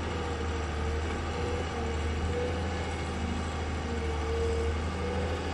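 Crawler excavator's diesel engine running steadily, with a wavering whine rising and falling over the drone as the arm and bucket move.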